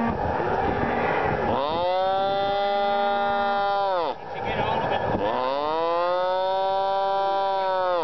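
Calf bawling twice in long calls, each rising at the start and dropping away at the end, while a hot branding iron is held to its hide.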